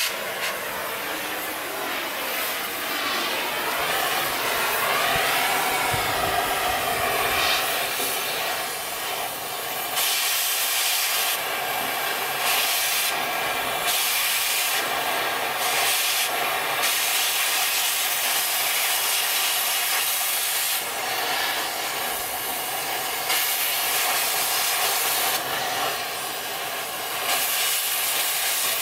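Hand-held cutting torch cutting through the steel wall of a diesel tank: a steady harsh hiss. Its high, sharp part surges and drops back several times through the middle and later part.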